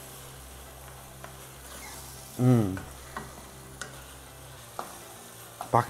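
Wooden spatula stirring paneer bhurji in a frying pan over a steady sizzle, with a few light ticks of the spatula against the pan. About halfway through, a short falling hum from a voice is the loudest sound.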